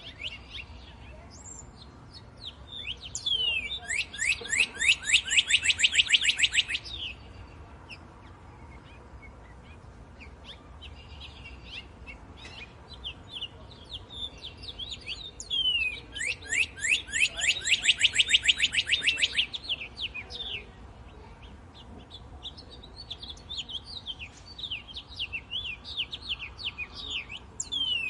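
Northern cardinal singing: two loud phrases, each a fast series of down-slurred whistled notes lasting about four seconds, about twelve seconds apart. A third phrase begins at the very end, and softer scattered chirps fall between the phrases.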